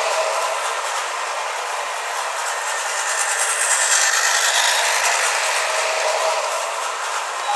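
Battery-operated toy bullet train running on its track: the small electric motor and gears whirring with a steady mechanical rattle from the wheels.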